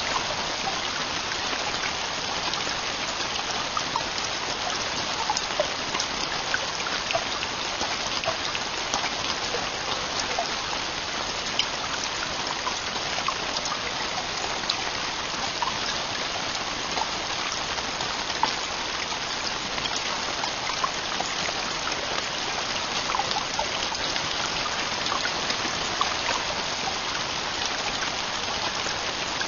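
Heavy rain falling steadily: an even hiss dotted with the sharp ticks of individual drops striking.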